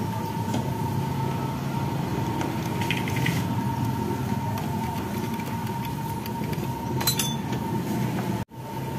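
Steady mechanical hum with a thin, steady whine over it and a few faint clicks, broken by a sudden, momentary dropout near the end.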